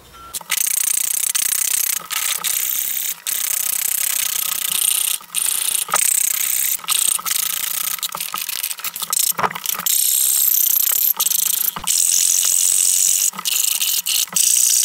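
Hand file rasping back and forth across a metal casting, taking off the casting flash, in a run of long strokes with brief breaks between them, roughly one a second.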